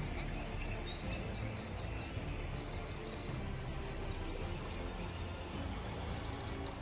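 Songbirds singing in quick series of high chirps over the steady rush of a river current.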